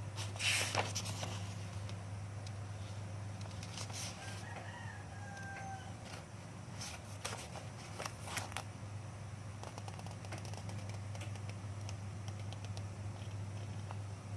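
A rooster crowing faintly in the background, one falling call about four to six seconds in, over a steady low hum and scattered clicks and knocks.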